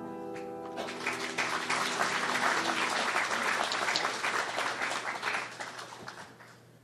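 The grand piano's final chord dies away, and about a second in an audience breaks into applause, which fades out near the end.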